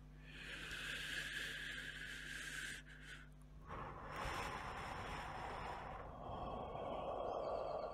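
Airy, wind-like whooshing noise with no clear pitch. It starts as a high hiss, turns broader and fuller a little past halfway, and settles lower near the end.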